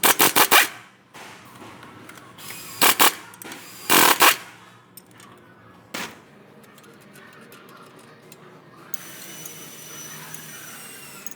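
Pneumatic impact wrench hammering in three short bursts, with a brief fourth, as it loosens the nuts on the car's front suspension. A faint steady hiss with a thin high whine follows near the end.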